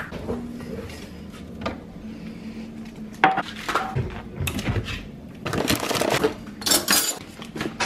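Hard objects being handled: a series of clicks, knocks and clatter, with the busiest stretch in the second half.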